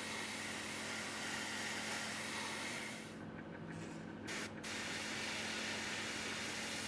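Gravity-feed airbrush spraying weathering paint in a steady hiss. It stops about three seconds in, gives one short puff, and carries on spraying from about four and a half seconds.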